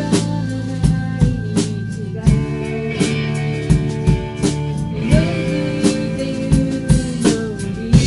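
Live band playing pop-rock: drum kit with a steady beat and cymbal hits under electric and acoustic guitars and keyboard, with held notes that bend in pitch.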